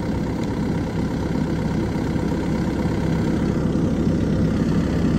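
Engine of a radio-remote-controlled machine idling steadily, a low, even rumble.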